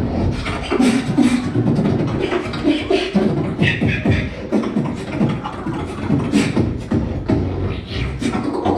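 Solo beatboxing: a fast, dense rhythm of vocal kick, snare and hi-hat sounds over deep bass, with a short high-pitched vocal sound a little before the middle.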